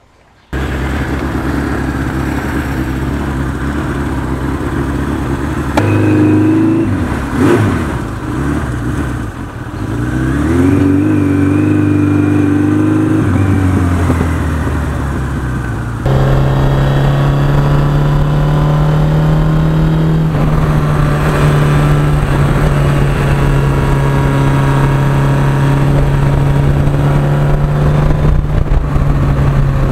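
1982 Suzuki GS1100E's air-cooled inline-four engine running under way, heard from on the bike. It revs up and down about ten to fourteen seconds in, then settles into a steady drone at cruising speed from about sixteen seconds in.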